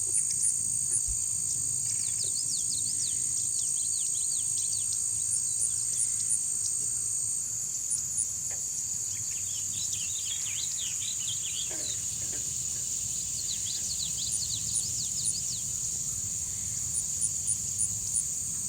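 Night-time animal chorus: a steady high insect drone with a regular high chirp about two to three times a second, which stops about seven seconds in and returns near the end. Clusters of quick falling chirps come and go over it.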